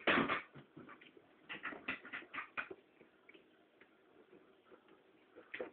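Eating and picking at a cooked cow's head: a quick run of short smacks and scrapes over the first three seconds, then fainter ones, with two more near the end.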